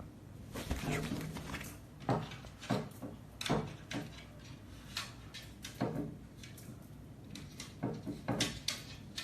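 Irregular knocks, bumps and scrapes on wood as a small chihuahua scrabbles and paws at furniture, trying to reach a toy that has been put out of its reach.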